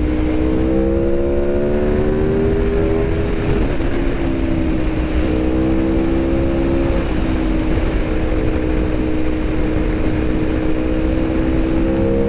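Aprilia RSV4 1100 Factory's V4 engine running hard at highway speed, heard from on the bike over rushing wind. The engine note creeps up, dips about four seconds in, steps up again a second later, then holds steady.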